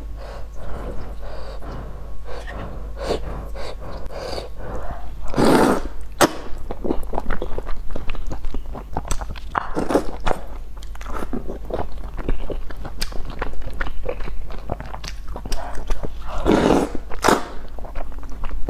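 Close-up eating sounds of a person slurping and chewing instant noodles, with many small wet clicks and smacks. Two longer, louder slurps come about five seconds in and again about sixteen seconds in.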